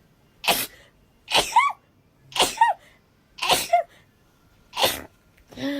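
A young woman sneezing rapidly in a series, five sharp sneezes about a second apart, several ending in a high squeaky voiced note. A short low vocal sound follows near the end.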